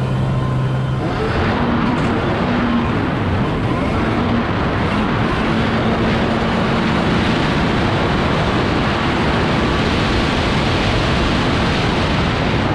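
1997 Yamaha Superjet's modified two-stroke engine with a B-pipe running under throttle at speed. The revs climb about a second in, and the rush of water spray from the hull grows loud over the engine.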